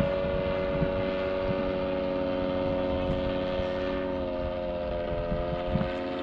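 Train horn held in one long continuous blast, its pitch sagging slightly about four seconds in, over a low rumble.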